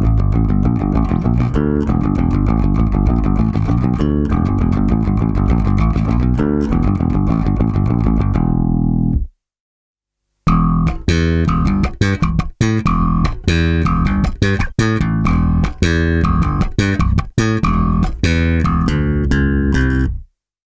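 Warwick Corvette bubinga 6-string bass guitar played solo through its active MEC preamp, both Seymour Duncan Basslines humbuckers on and EQ flat. A continuous run of plucked notes stops about nine seconds in, and after a short pause a second phrase of short, detached notes follows.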